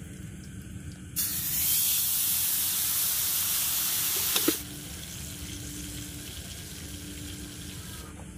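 Burger patty laid on a hot, oiled ridged grill pan over a portable gas stove, sizzling loudly from about a second in. The sizzle drops abruptly to a softer steady hiss a few seconds later and stops near the end.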